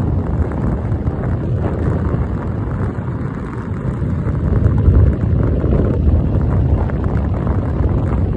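Wind buffeting the microphone of a phone on a moving motorbike: a loud, gusting low rumble.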